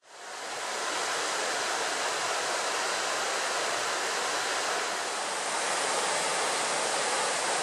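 Steady rushing of a nearby torrent, fading in over the first second.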